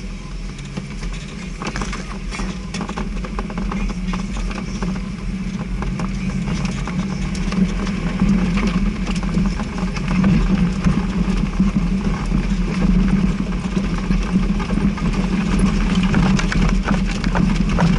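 An off-road 4x4's engine running steadily, growing a little louder about halfway through, with scattered clicks and knocks over it.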